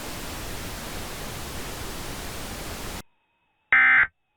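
Steady radio static hiss that cuts off abruptly about three seconds in. Near the end comes one short, loud burst of Emergency Alert System digital data tones, the end-of-message signal that closes the alert.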